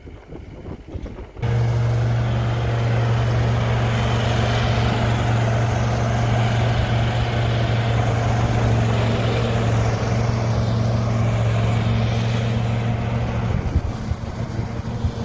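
John Deere 332D skid steer loader's diesel engine running steadily close by, with a constant low engine note under a wide hiss; it cuts in abruptly about a second and a half in.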